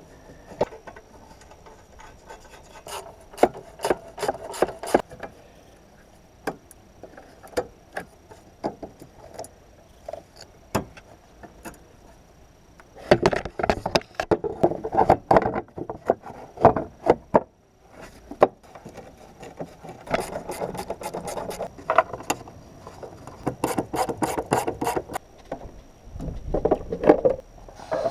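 Irregular clicks and rubbing scrapes, coming in bursts, from hand tools and parts being handled during car repair work.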